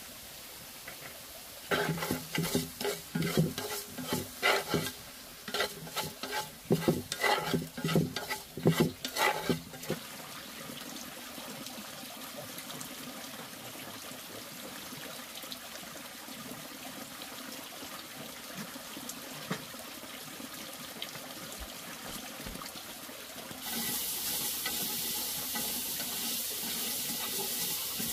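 Kitchen work: several seconds of irregular clattering and knocking of pots and utensils, then a steady hiss that gets louder near the end.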